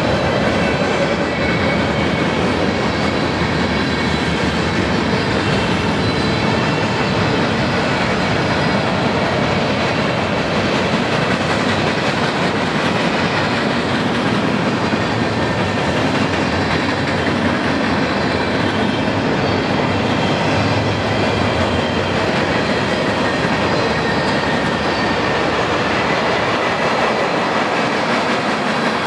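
Freight cars of a Union Pacific manifest train rolling past: a steady, continuous noise of steel wheels running on the rails.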